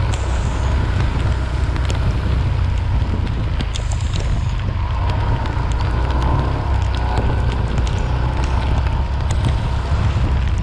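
Wind buffeting the microphone of a moving action camera in a steady low rumble, over the hiss of heavy rain, with scattered ticks of raindrops striking the camera housing.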